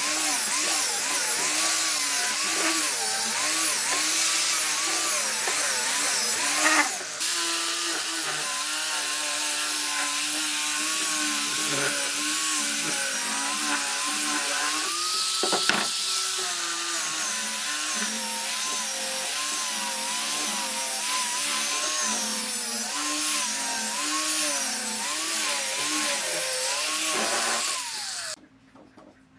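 Electric angle grinder with a sanding pad, sanding curved laminated wood: a motor whine that wavers up and down in pitch over the hiss of the abrasive on the wood. It stops abruptly near the end.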